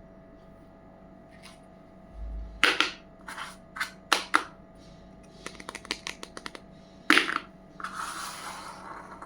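Small plastic toy kitchen pieces and their packaging being handled: scattered sharp clicks and taps, a quick run of small clicks around the middle, and a rustle near the end.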